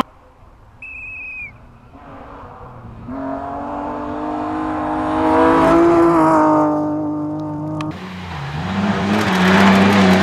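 A rally car's engine at high revs, approaching and passing on a gravel stage, rising in pitch and level and then dropping away. After a sudden change, a BMW 3 Series (E36) rally car's engine holds steady revs as it slides through a gravel corner, with a hiss of gravel spraying from its wheels near the end.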